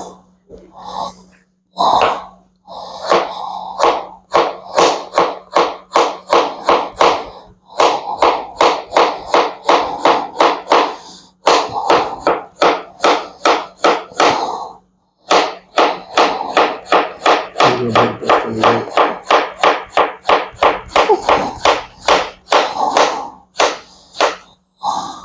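Knife chopping vegetables on a cutting board: quick, even strokes about four a second, in runs broken by short pauses.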